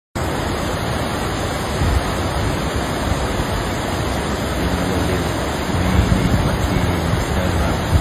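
Steady rushing noise of a shallow river flowing over rocks.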